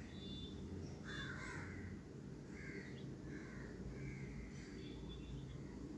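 Crows cawing repeatedly, faint, over a low steady background hum.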